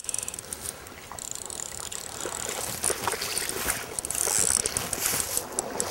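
Fly reel clicking rapidly in uneven runs as line is worked on and off the spool while a hooked salmon is played, the clicks strongest in the second half.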